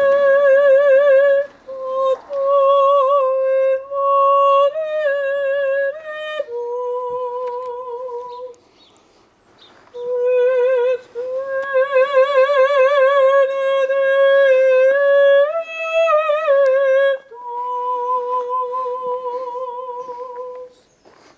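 A woman's voice singing alone, unaccompanied, in a slow devotional song: long held high notes with strong vibrato, in phrases separated by short breaths and one longer pause just before the midpoint.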